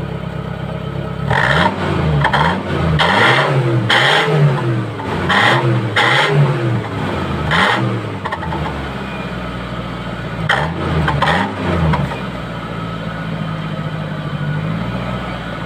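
Car with an aftermarket HKS-style muffler idling with a low, deep growl. It is revved in a run of quick throttle blips, each a rising and falling surge, settles back to idle, gets two more blips, then idles again.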